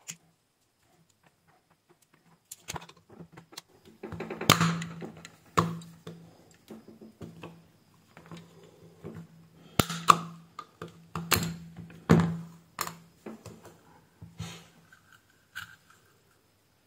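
Plastic case of a USB mobile charger being pried open with a small tool: a run of clicks, scrapes and sharp plastic snaps as the clip-on front cover is worked loose, with the loudest cracks about four, ten and twelve seconds in.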